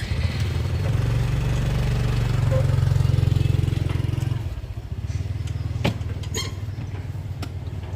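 A small engine running steadily, growing louder over the first few seconds and then easing back, with a few sharp clicks near the end.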